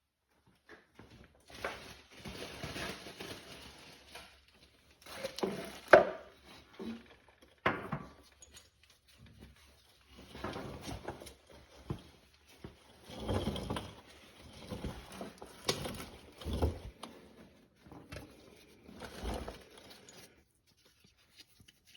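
Tools and parts being rummaged through and handled: irregular clattering, scraping and rustling, with a sharp knock about six seconds in.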